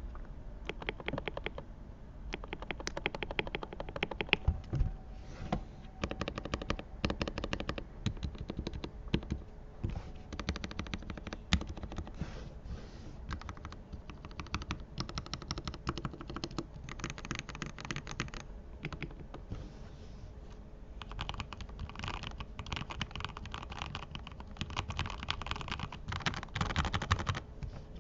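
Lubed mechanical keyboard being typed on fast, dense runs of key clicks and thocks in bursts with short pauses between them.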